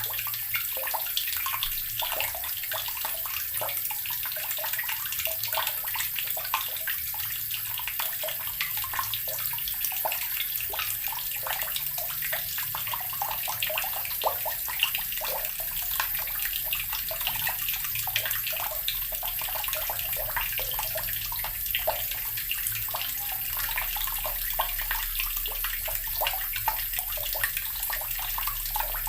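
Water from a tap pouring into an earthen barrel, a steady splashing stream full of quick gurgling bubbles.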